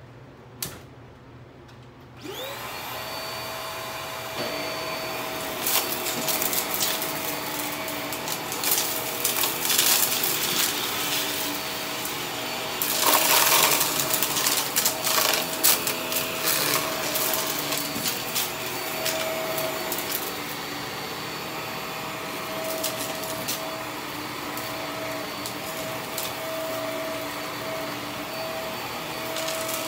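Cordless stick vacuum switched on about two seconds in, its motor spinning up to a steady whine, then run over carpet with sharp crackles and rattles of debris being sucked up, thickest about halfway through.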